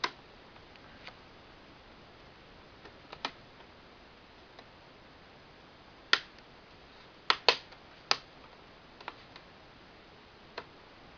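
Sharp plastic clicks and snaps as the plastic clips of a Toshiba Satellite L650 laptop's screen bezel are prised loose: a single click at the start, one about three seconds in, and a run of the loudest snaps between about six and eight seconds in, with a couple of faint ticks after.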